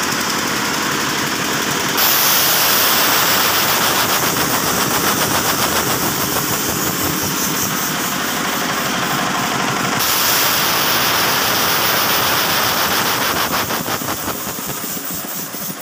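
Diesel-driven air compressor running on test: a Yanmar TF105R single-cylinder diesel engine turning a belt-driven piston compressor pump, with a fast, steady knocking rhythm. A stronger hiss joins about two seconds in and drops away after about ten seconds.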